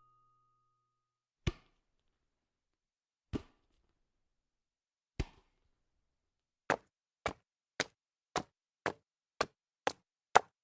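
A series of short, sharp knocks: three spaced about two seconds apart, then a quicker, even run of about two a second.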